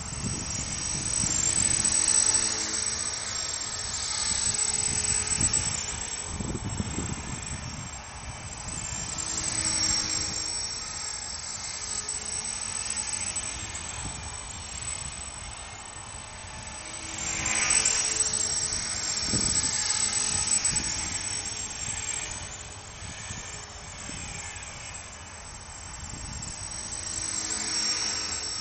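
CopterX 450 PRO electric RC helicopter in flight: the high whine of its brushless motor and the rush of its spinning rotor blades. The sound swells and fades several times as the helicopter flies nearer and farther away.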